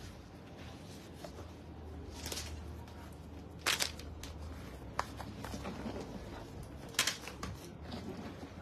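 Leather clutch being handled: its flap is opened, moved about and closed again, giving soft rustling with a few sharp taps and clicks. A low steady hum runs underneath.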